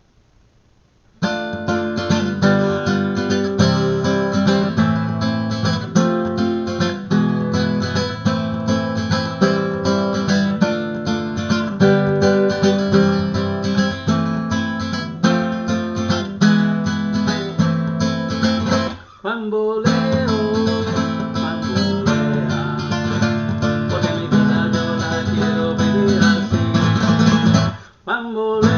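Acoustic guitar strumming a driving rumba flamenca rhythm of full chords. It starts about a second in, with a brief break about two-thirds of the way through and another just before the end.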